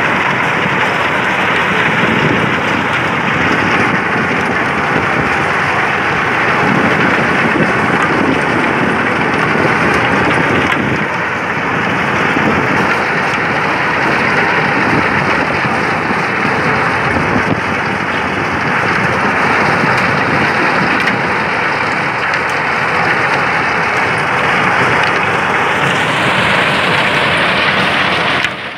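Rotary log debarking machine running with logs tumbling and rubbing inside it: a loud, steady, noisy rush. It breaks off suddenly near the end.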